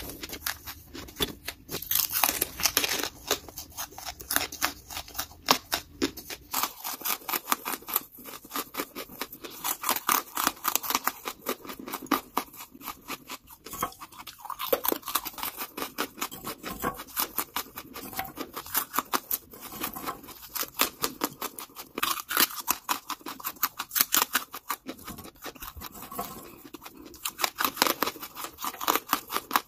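A person biting and chewing lumps of charcoal: dense, crisp crunching and crackling, many small cracks a second. A low hum under the crunching drops out about seven seconds in.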